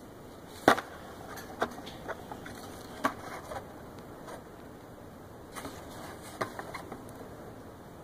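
Product packaging being handled: a cardboard box and a plastic insert tray knocked and shifted, giving a series of sharp clicks and light knocks, the loudest about a second in.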